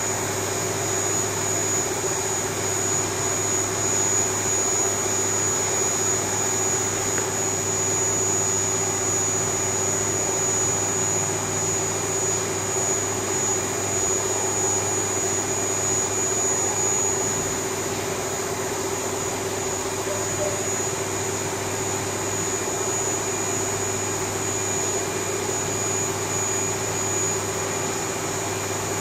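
CNC milling machine cutting an aluminum plate with an end mill under flood coolant: a steady machining sound with a high whining tone and an even hiss.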